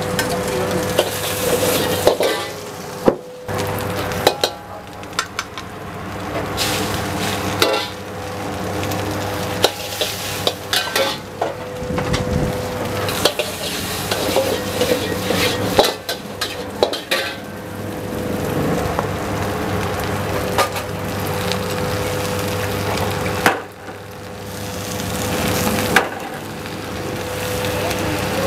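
Vegetables being stir-fried in a wok over a high flame: a steady sizzle, with the metal ladle scraping and clanking against the wok many times, over a steady hum.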